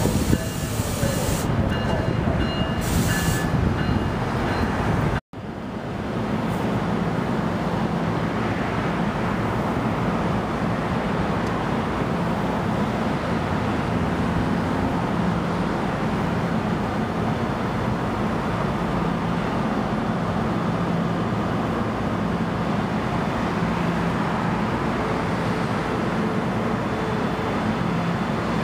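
Passenger train running through a station: a steady rumble with a low hum. There are a few high thin tones and short hisses in the first seconds, and a sudden brief break about five seconds in.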